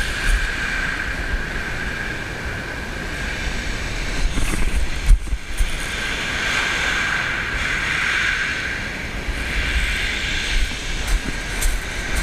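Wind buffeting the microphone over waves breaking and washing back on a shingle beach, with the surf hiss swelling midway.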